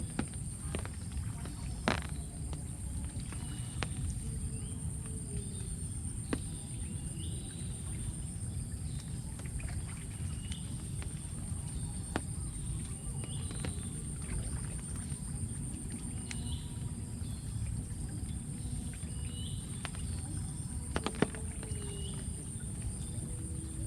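Streamside outdoor ambience: a steady high insect trill over a low rush of water, with a short chirping call repeated every second or two and a few scattered clicks.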